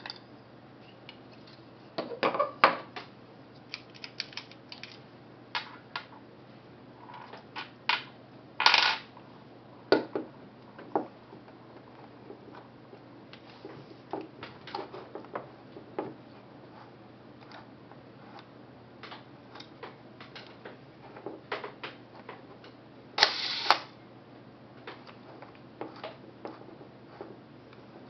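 Mechanical clicks of a Zorki 4 rangefinder camera's controls being worked by hand, scattered irregularly throughout, with two louder half-second rasps about nine seconds in and again about twenty-three seconds in.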